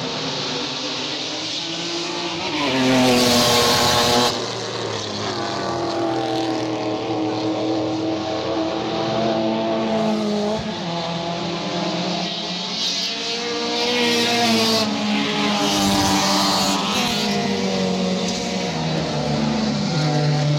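Modified race cars' engines revving hard as they pass one after another, climbing in pitch and dropping back again and again, with a faint tyre squeal. The loudest pass is about three seconds in.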